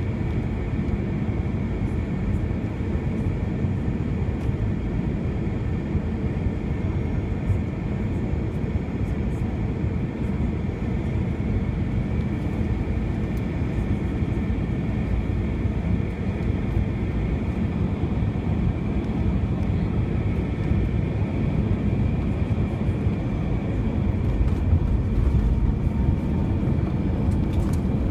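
Airbus A321 cabin noise on final approach, heard from a seat over the wing: a steady rush of engine and airflow with a steady high engine tone. It grows a little louder over the last few seconds.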